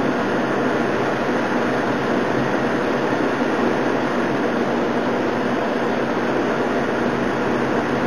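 Torrential thunderstorm downpour in high wind: a loud, steady roar of rain with no thunder claps.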